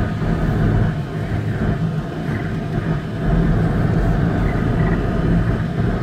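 Road-vehicle cabin noise while driving: a steady low engine and tyre drone with a hum, heard from inside the cab. It gets a little louder about three seconds in.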